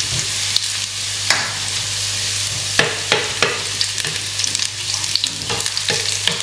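Chopped garlic sizzling in hot oil in a non-stick frying pan, stirred with a spatula that scrapes and taps against the pan now and then.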